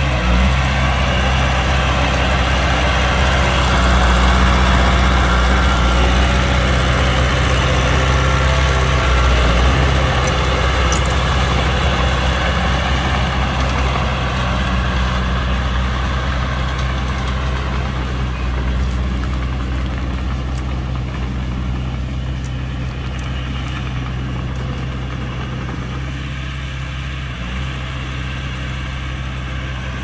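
Heavy diesel engine of earthmoving machinery running steadily, loudest for the first ten seconds and then slowly getting quieter.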